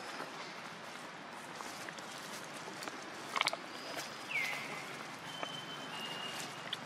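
Crackling and rustling in dry leaf litter, loudest about three and a half seconds in, with a few short high whistle-like calls, one of them falling in pitch, over a steady outdoor background hiss.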